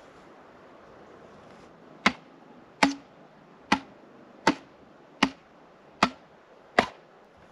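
Seven heavy hammer blows on the top of an upright post, driving it into the ground, evenly spaced about three-quarters of a second apart, starting about two seconds in.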